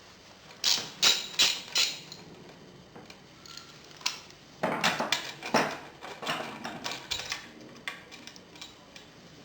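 Metal tools clinking and knocking against a bicycle crank as its bolt is undone, in irregular sharp clinks, a cluster near the start and another from about four to six seconds in.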